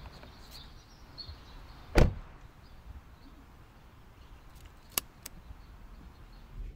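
Quiet outdoor background with faint high chirps repeating throughout, one sharp knock about two seconds in, and two brief clicks around five seconds.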